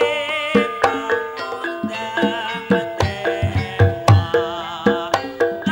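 Javanese gamelan music for an ebeg horse dance: hand-drum strikes two or three times a second, some deep and heavy, under ringing metallophone notes. A high wavering melody line runs over it at times.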